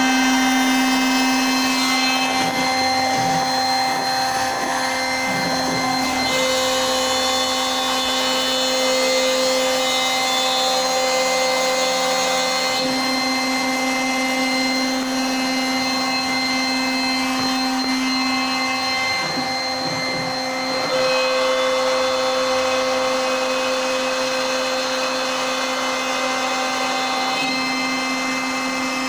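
CNC router cutting MDF: the spindle runs with a steady whine, and its set of tones shifts every few seconds as the machine's moves and cutting load change.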